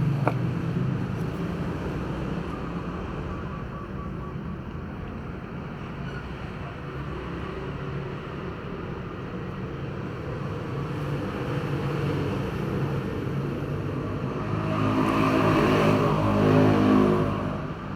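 Steady rumble of motor traffic, with one vehicle's engine passing close by and growing louder, then fading, near the end.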